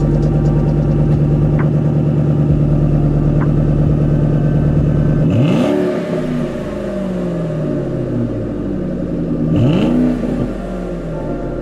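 2013 Ford Shelby GT500's supercharged 5.8-litre V8 idling steadily through its quad exhaust, then revved twice, about five and nine and a half seconds in. Each blip rises sharply and falls back slowly to idle.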